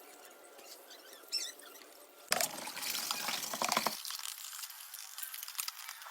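Water splashing and trickling, loudest in a burst lasting about a second and a half, starting a little over two seconds in, then fading to a fainter trickle with small clicks.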